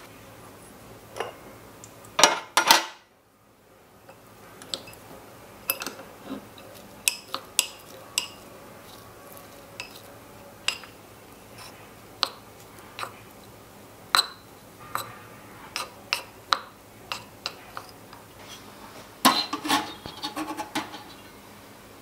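Miniature aluminium pots and small kitchen utensils clinking and tapping: scattered light clicks, two louder knocks about two seconds in, and a quick run of clinks near the end.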